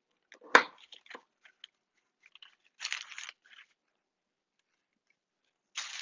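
Chef's knife slicing through firm, chilled chocolate shortbread dough full of chocolate chips, the blade muscling through the chips. A sharp knock of the knife on the wooden counter about half a second in, a few small clicks, then two short crunching slicing strokes, one midway and one near the end.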